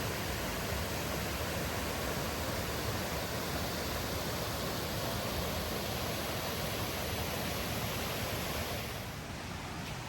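Rushing water of a river waterfall, a steady even rush that eases off somewhat near the end.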